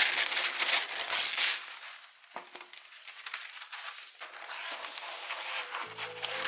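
Sheet of parchment paper crinkling and rustling as it is handled and smoothed flat. It is loudest in the first second and a half, quieter for a couple of seconds, then louder again about four seconds in.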